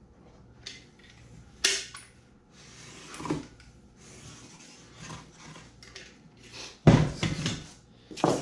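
Workshop handling sounds of foam pieces and tools being fitted by hand: a sharp knock, a stretch of rubbing and scraping, then a heavy thump about seven seconds in and another knock near the end.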